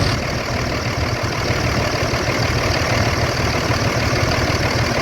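Cummins diesel engine idling steadily with about 200,000 miles on it. It runs smoothly with little shaking, just after an oil change with an anti-friction additive.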